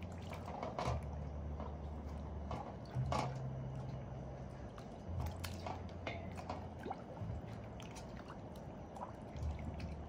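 Water sloshing and dripping in an aluminium basin as hands rub and turn whole plucked chickens, with wet squelches from the carcasses in irregular short splashes. A low steady hum sits underneath, cutting in and out.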